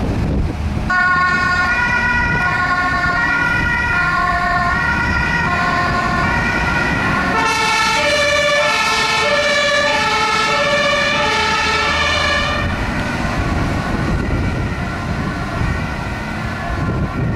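German two-tone fire engine sirens (Martinshorn) alternating between two pitches as the fire brigade convoy moves off. A second siren at different pitches joins about seven seconds in, and both stop about thirteen seconds in, leaving a low rumble of engines and wind.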